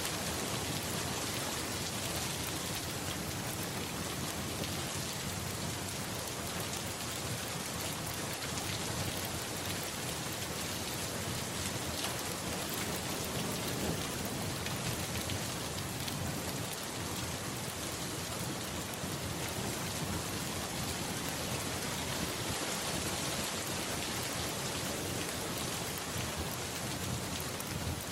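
Steady heavy rainfall, a dense, even hiss of drops on surfaces that holds at the same level throughout.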